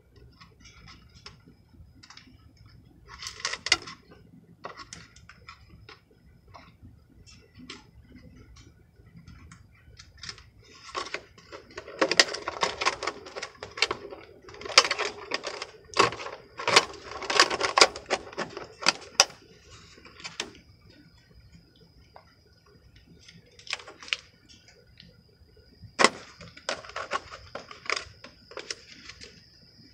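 Hands working on a Traxxas Bandit RC buggy: irregular clicks, taps and plastic rattles as the body shell and parts are handled and fitted, busiest in the middle, over a faint steady high whine.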